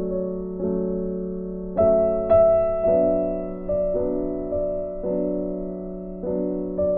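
Slow instrumental background music of sustained chords, a new chord struck about once a second and fading before the next.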